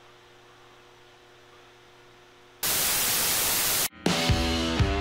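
Faint steady electrical hum. About two and a half seconds in, a loud burst of static hiss lasts just over a second and cuts off suddenly, like a transition sound effect. Guitar music starts near the end.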